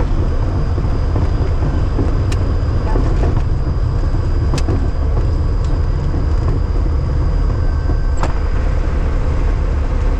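Steady low drone of a single-engine propeller plane's engine and propeller heard inside the cabin as it rolls along the runway after landing, with a few short sharp clicks.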